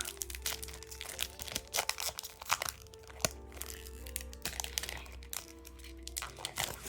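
Trading card pack wrapper crinkling and crackling in the hands as it is opened, with irregular sharp crackles, over soft background music.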